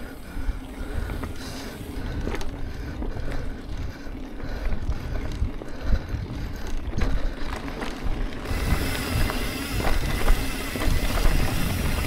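Mountain bike riding over a dirt trail: wind rumbling on the microphone, with scattered knocks and rattles from the bike. A hiss grows louder about eight and a half seconds in.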